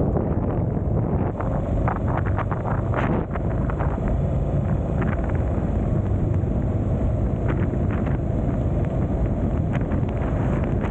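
Wind buffeting the microphone of a moving vehicle, a steady low rumble with the vehicle's running noise underneath. A cluster of short crackles comes about two to three seconds in, and a few more follow later.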